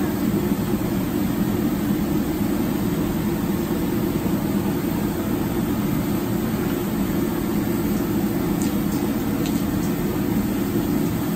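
Steady low rumbling noise with no break, with a few faint clicks about nine seconds in.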